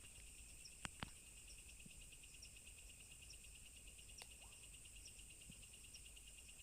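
Faint night chorus of crickets trilling steadily, with small high peeps repeating about once a second and two faint clicks about a second in.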